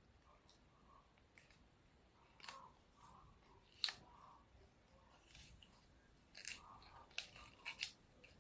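Faint crinkling and crackling of a small piece of paper handled and folded by fingers, in scattered short crisp bursts, the sharpest about four seconds in and a run of several near the end.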